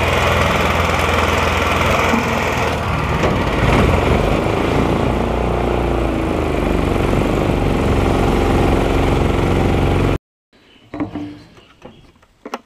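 Mud motor's small air-cooled engine on an aluminium dinghy running steadily under load, its note sliding down a little about four to five seconds in and then holding. The sound cuts off abruptly near the end, leaving only a few faint knocks.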